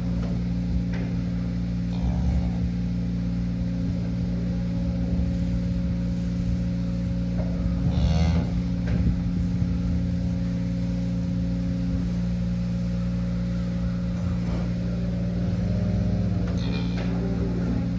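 Cattle mooing a few times, the clearest call about eight seconds in and another near the end, over a continuous steady mechanical hum.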